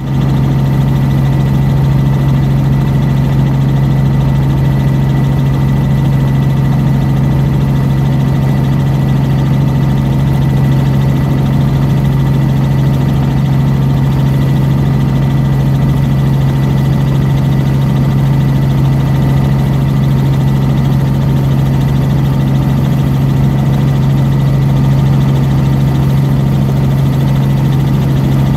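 Small aircraft's engine heard from inside the cabin in steady cruise flight: a loud, even drone with a strong low hum that does not change.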